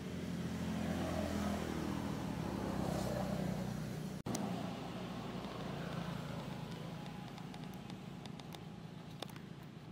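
Engine of a motor vehicle running in the background, steady and loudest over the first few seconds, then fainter and slowly fading after a brief dropout about four seconds in. A few faint clicks come near the end.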